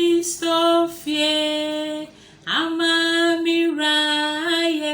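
Women singing a church chorus in Twi: long held notes with short breaths between phrases.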